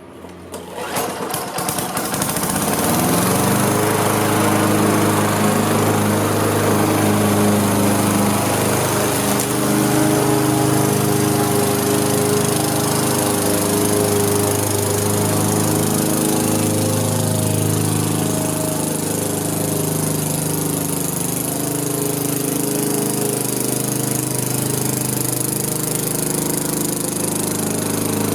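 Gas lawn mower engine starting about a second in and coming up to speed, then running steadily. Its pitch wavers slightly as it cuts long grass.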